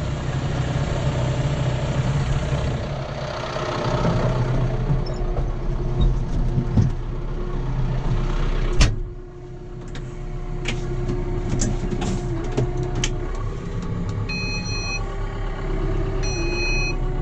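John Deere tractor engine running steadily. There is a sharp clack about nine seconds in, after which it is briefly quieter, and two short electronic beeps near the end.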